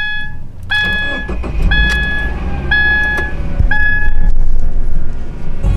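A car's warning chime dings about once a second and stops about four seconds in, over the car's engine rumbling low. The engine grows louder toward the end.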